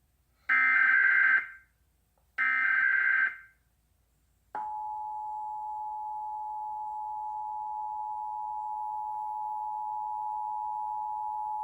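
Emergency Alert System SAME header: two roughly one-second bursts of digital data tones that encode the alert, a second apart. About four seconds in, the steady two-tone EAS attention signal starts and holds, the signal that an emergency alert message follows.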